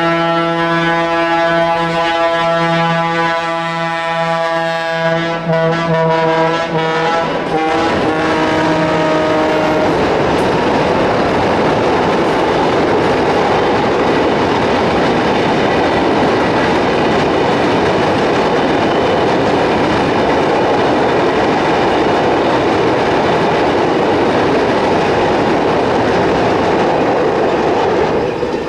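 A train sounding a long, steady horn blast for about ten seconds. It then passes close by with a loud rush of wheel and rail noise, which stops just before the end.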